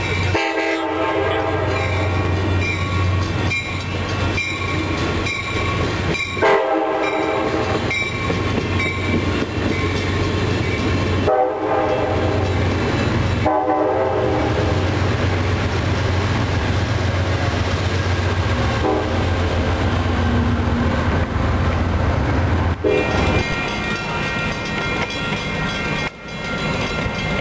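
Amtrak California passenger train running past on street-running track, its diesel locomotive sounding several horn blasts, a long one first and shorter ones later, over a steady low engine rumble.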